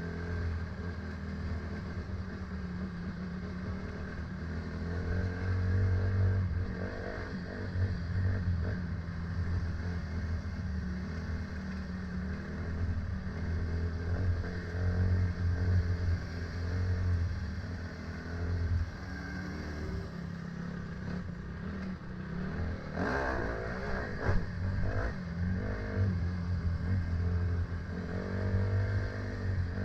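A vehicle engine running steadily, its low hum drifting slightly in pitch, with a brief louder noisy patch about two-thirds of the way through.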